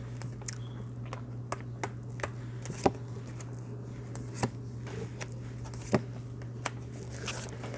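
Tarot cards being handled and laid down on a table: scattered soft clicks and taps, about ten over several seconds, over a steady low hum.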